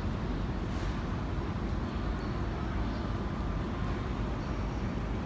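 A 15-car E231/E233 series commuter electric train pulling out of the platform, with a steady low rumble of wheels on rails.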